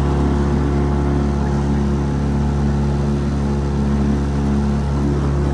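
Small motorboat's engine running steadily under way, with the rush of water from the churning wake.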